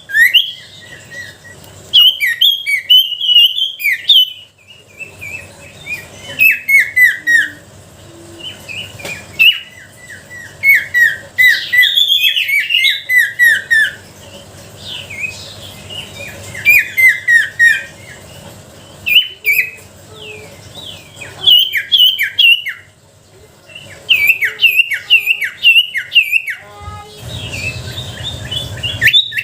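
Sirtu songbird singing loud bouts of rapid, short chirped notes that slide downward, each bout followed by a short pause. This is lure song ('gacor') meant to set a silent sirtu singing.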